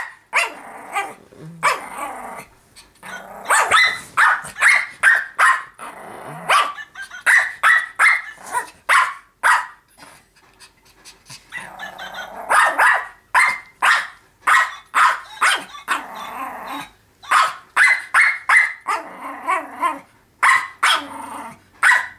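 Small pug-type dog barking in rapid runs of short sharp yaps, about two to three a second, with short growls between runs, at a plush toy dog pushed toward it.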